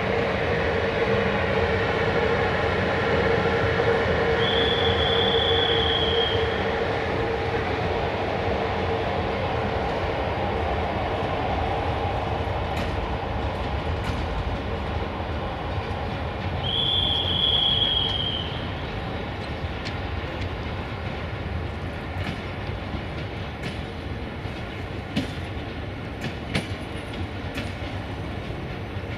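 Train moving slowly through the station tracks: a steady rumble, with a brief high squeal twice and sharp clicks of wheels over rail joints in the last few seconds.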